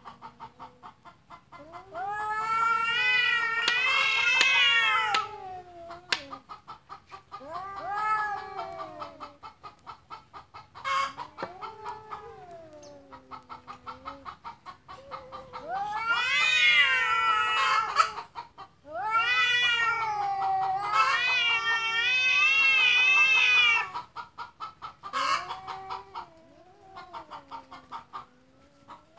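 Cats yowling at each other in a face-off: long, wavering, baby-like wails that rise and fall in pitch. They come in bouts of a few seconds with short pauses, and are loudest around the middle of the stretch. It is the aggressive caterwauling of two cats squaring up to fight.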